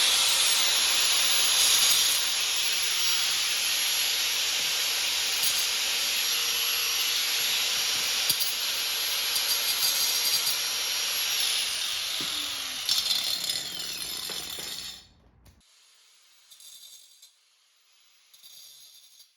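A handheld power tool runs steadily with a loud high hiss and a thin whine, working on the ATV's snapped drive chain. It winds down about twelve seconds in and stops about fifteen seconds in, leaving only a few faint brief sounds.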